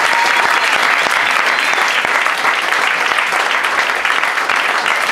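Steady applause from a small theatre audience, with the cast on stage clapping along.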